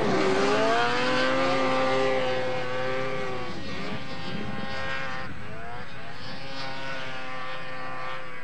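Racing snowmobile's two-stroke engine running at high revs as it climbs a slope. The pitch dips at the very start, then rises and wavers, and the engine slowly fades with distance.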